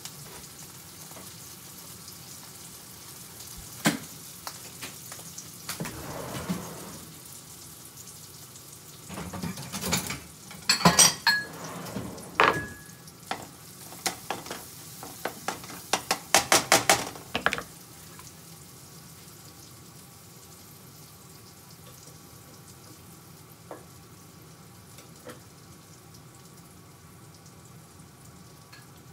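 Fried rice sizzling in a frying pan on a gas burner, with a spatula scraping and clattering against the pan for several seconds in the middle, ending in a quick run of taps. A steady sizzle continues after the spatula is set down.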